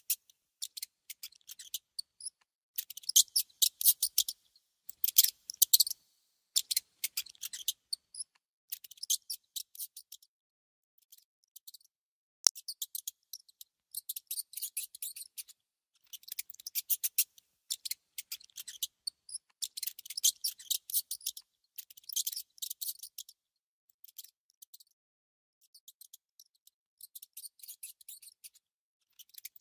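Mouse gnawing on food: quick, sharp high clicks in bursts of a second or so, broken by short pauses.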